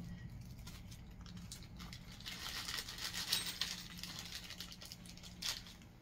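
Faint crinkling of small plastic parts bags being handled, with one sharp click near the end.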